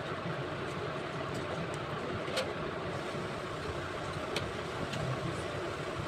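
Steady low background noise with a few faint clicks.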